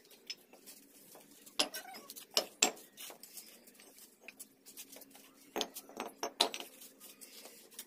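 Sharp clinks and knocks of red clay bricks being set and tapped into place on mortar: a cluster of knocks about a second and a half in, and another around five and a half to six and a half seconds in.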